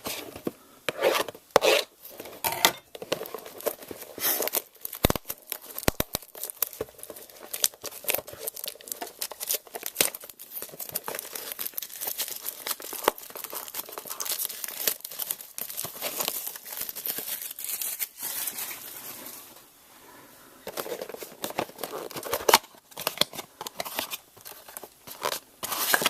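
A cardboard trading-card blaster box being torn open by hand: irregular tearing and crinkling of its wrapping and cardboard, with a short lull about two-thirds of the way through.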